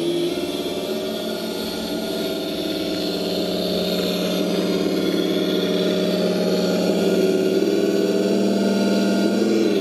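Simulated engine sound from an RC sound system, played through the speaker of a Tamiya Unimog 425 RC truck as it drives. Steady, growing louder toward the end as the truck approaches, with a brief change in pitch just before the end.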